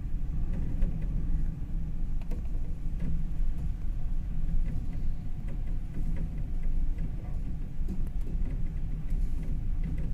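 Low, steady rumble aboard a ship at sea, its level wavering constantly, with scattered light clicks and rattles.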